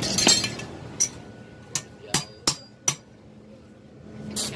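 Hammer striking the steel motorcycle swing arm held in a vise: about seven sharp metallic blows at an uneven pace, each ringing briefly, with a pause before the last one near the end.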